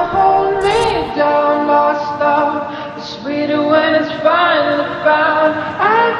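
Background song with a singing voice holding long, wavering notes over the accompaniment.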